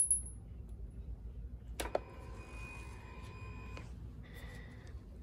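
Honda Super Cub's ignition switched on: a click, then a steady electric whine for about two seconds as the fuel-injection pump primes, followed by a shorter, fainter tone.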